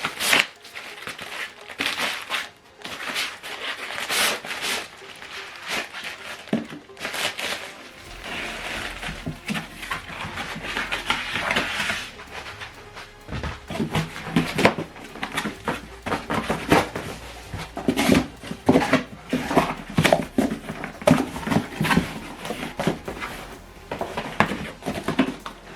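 Cardboard and plastic packaging being handled while a soundbar is unboxed: irregular rustling, scraping and knocking. A low steady hum comes in about eight seconds in.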